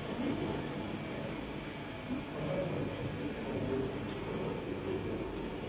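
A running wire and cable extrusion line makes a steady low machine hum, with a constant high-pitched whine over it.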